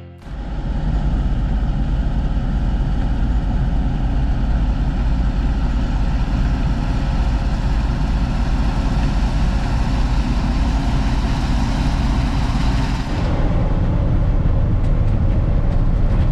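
Case IH 2388 combine running steadily under load, a continuous deep engine and machinery drone. The sound changes character about thirteen seconds in.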